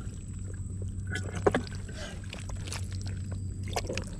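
Hands working in soft wet mud: small squelches and crackles, with one sharp click about a second and a half in, over a steady low rumble.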